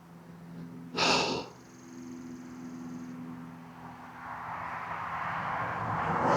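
A man breathing hard with the effort of bending a steel knife blade in a vise. A sharp exhale comes about a second in, then heavy, strained breathing that grows louder toward the end.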